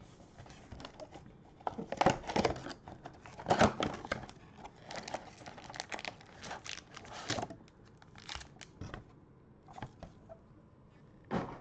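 Cardboard trading-card mega box being torn open and its foil card packs crinkling as they are pulled out: a run of irregular rustles and tears, loudest about two and three and a half seconds in, with one more short rustle near the end.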